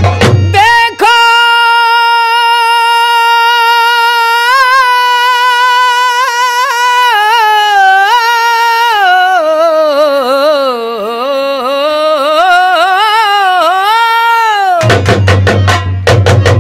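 A male nautanki singer holds one long, high note without accompaniment, then winds it through a wavering run that dips and rises before it ends. Fast drumming plays briefly at the start and comes back in near the end.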